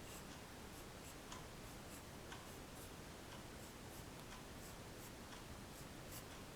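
Pencil sketching on paper, heard faintly as irregular short scratches and light ticks of the pencil, a few a second.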